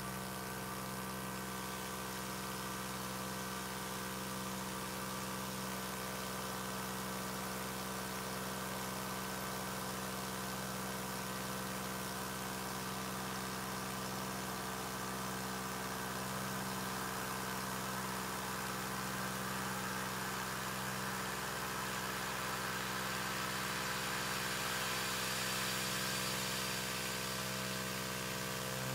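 Tormach 440 CNC mill spindle turning a 2.5-inch Superfly fly cutter at 2,500 RPM, facing an aluminum block 0.05 inch deep at 15 inches per minute. It makes a steady machine hum under a hiss of mist coolant.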